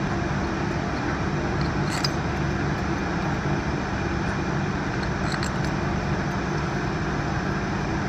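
Steady mechanical hum and noise from running workshop machinery, with a couple of faint clicks.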